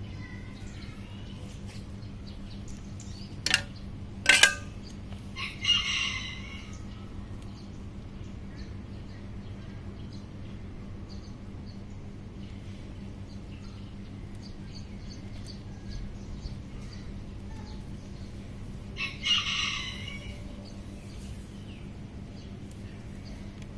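A rooster crowing twice, about five seconds in and again near the end, over a steady low hum. Two sharp clicks, the loudest sounds, come just before the first crow.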